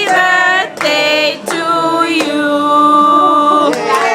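Several voices singing a birthday song together without accompaniment, in short sung phrases with one long held note about halfway through.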